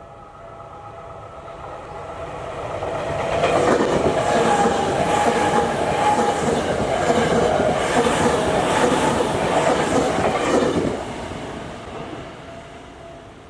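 A Tokyu Toyoko Line electric train passing through a level crossing, wheels clattering rhythmically over the rail joints. It builds up over the first few seconds, runs loud for about seven seconds, then fades. The crossing warning bell rings steadily underneath.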